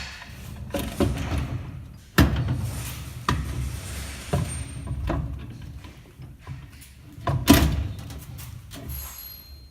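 Metal clunks and knocks from transmission parts being fitted together during reassembly of an automatic gearbox, with several sharp thuds, the loudest about two seconds in and near the end.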